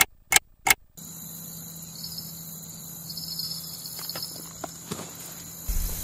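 A clock-ticking sound effect, three ticks about a third of a second apart, then steady chirring of summer insects. A low rumble comes in near the end.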